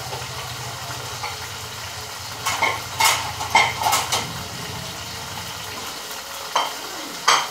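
Pork chops sizzling in a frying pan on a gas stove. A cluster of sharp kitchen clatters comes about two and a half to four seconds in, and two more near the end. A low steady hum underneath stops about six seconds in.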